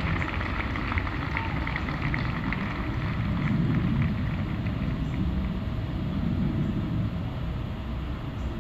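Crowd noise from a large gathering of spectators and swimmers across the water, under a low rumble that swells and fades twice.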